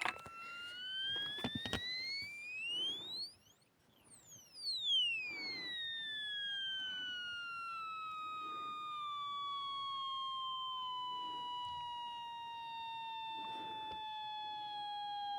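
Shake N Go toy sports car giving a malfunctioning high-pitched squeal. The tone climbs steeply in pitch until it goes out of hearing about four seconds in. It then comes back and glides slowly down to a lower whine.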